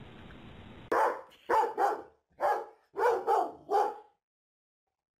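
A pit bull–type dog barks seven times in quick succession, in short loud barks over about three seconds, after a second of faint hiss.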